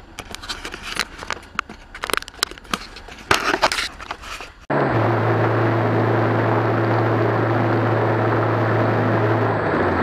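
Scattered sharp clicks and knocks, then an abrupt cut about five seconds in to steady vehicle noise with a low, even engine hum.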